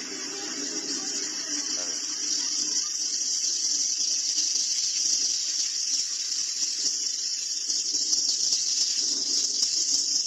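Rushing floodwater: a steady, hissing wash that swells slightly over the first few seconds.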